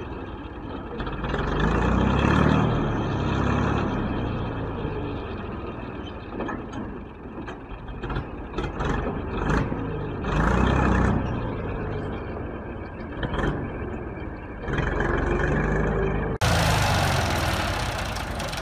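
Ford farm tractor engine running as the hydraulic tipping trailer dumps sand, revving up in three swells. Near the end the sound cuts abruptly to the tractor engine heard up close, louder and hissier, as it pulls a loaded trailer.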